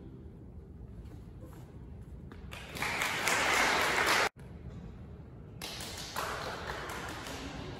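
Audience applauding in a large hall: the clapping swells about two and a half seconds in and is cut off abruptly a little past four seconds, then starts again about a second and a half later and fades.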